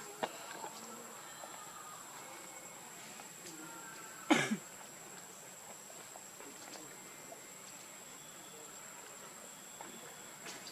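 Steady high insect drone over forest background, with a few faint clicks and one sharp knock about four seconds in.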